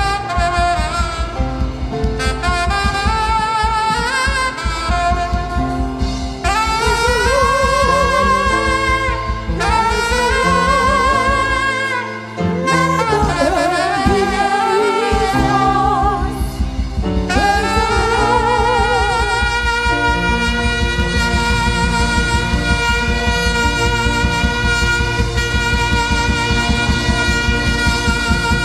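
Live gospel band music with a steady beat under a wavering, saxophone-like lead melody; the bass and beat drop out briefly about twelve seconds in.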